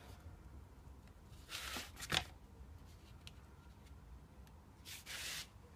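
Utility knife blade drawn through thin cereal-box card: two short scratchy cutting strokes, one about a second and a half in with a sharp click at its end, and another about five seconds in.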